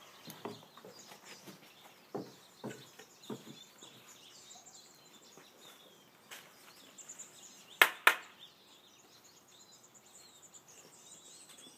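A child's plastic toy bat striking: two sharp knocks in quick succession about two-thirds of the way in, with a few softer knocks earlier. Birds chirp faintly in the background.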